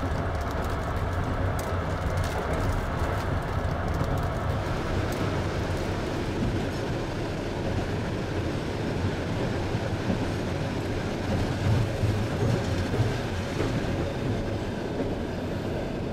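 Long-distance passenger train running on the rails: a steady rumble, with sharp clicks in the first few seconds.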